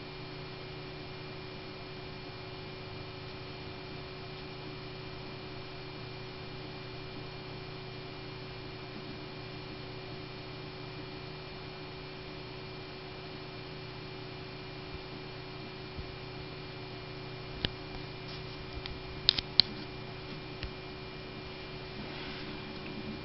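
Steady running hum of a PowerMac 8500 desktop computer while it boots, with a few steady whining tones over it. About three quarters of the way through come a handful of sharp clicks, two of them loud and close together.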